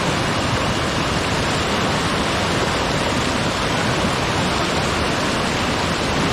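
Loud, steady rush of fast-flowing river water over rocks, with no break or change.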